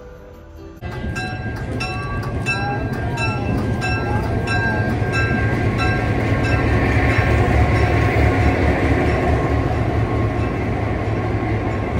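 Passenger train running along the track: a steady low rumble of the cars rolling on the rails, starting suddenly about a second in. For the first few seconds there is a regular clicking, two or three a second, and then the rumble grows a little louder.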